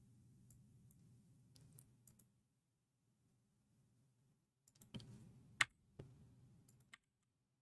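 Near silence broken by a few faint computer mouse and keyboard clicks. A small cluster comes about five seconds in, with the sharpest click at about five and a half seconds.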